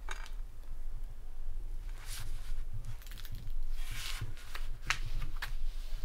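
Hand work on wood: a few short scrapes and knocks, the longest about four seconds in, over a steady low hum.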